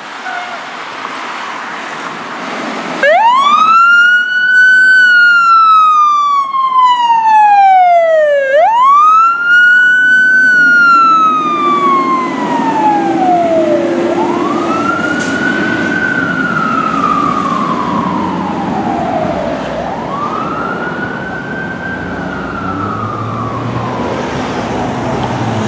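Fire engine siren (on a 2017 Pierce Arrow XT pumper) wailing as the truck responds. It starts about three seconds in, with four slow wails that each rise quickly and fall away over five or six seconds. It is loudest in the first two wails, then fainter as the truck drives away.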